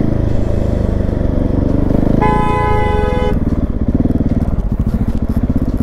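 GasGas SM700's single-cylinder engine running through a LeoVince slip-on exhaust while riding, heard from on the bike. About two seconds in, a vehicle horn sounds once for about a second.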